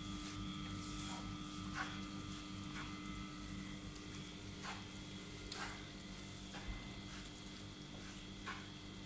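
Wooden spatula stirring and pressing wheat flour through hot ghee in a nonstick frying pan, making soft scattered scrapes and light taps against the pan, over a steady low hum.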